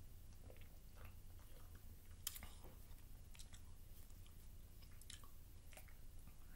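Faint mouth and swallowing sounds of someone drinking soda from a can, with a few light clicks, the sharpest about two seconds in, over a low steady hum.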